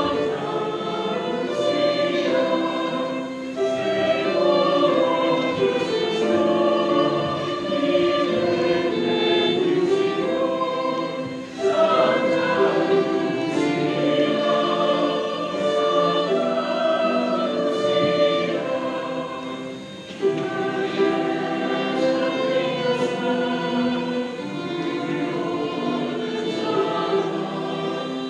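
A choir singing a slow song in long sustained phrases, with short breaks for breath about twelve and twenty seconds in.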